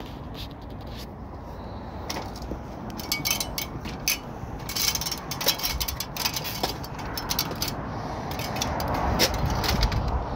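Someone climbing an aluminium ladder while carrying concrete roof tiles: a run of sharp clicks and knocks from the tiles and boots against the ladder, then scraping and rustling that grows louder near the end as they reach the tiled roof.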